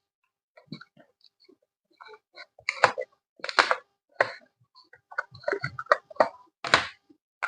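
Irregular clicks, knocks and short rustling clatters, as of small parts and containers being handled, with quiet gaps between.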